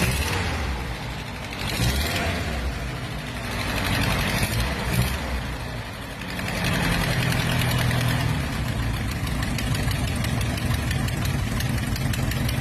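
Vintage vehicle's engine running. About six seconds in it settles into a louder, steady low drone.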